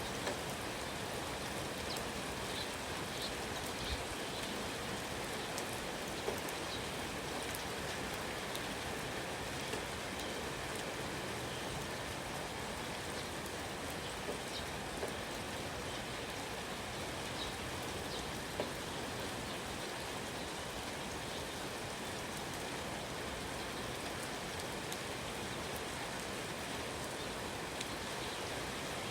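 Steady rain falling, an even hiss with individual drops ticking now and then, and a bird chirps faintly a few times.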